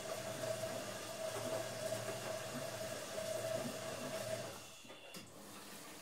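Automatic washing machine running with a steady whine over a low hum. The whine stops about four and a half seconds in, and a single click follows.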